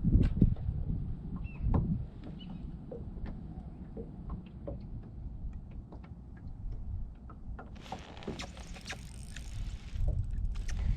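Wind rumbling on the microphone aboard a small fishing boat, with scattered light clicks and knocks, and a brief hiss about eight seconds in.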